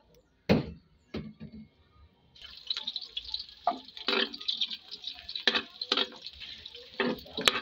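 Two sharp knocks against a steel wok, then, about two and a half seconds in, garlic and onion start sizzling in hot cooking oil, with a spatula repeatedly clattering and scraping against the wok as they are stirred.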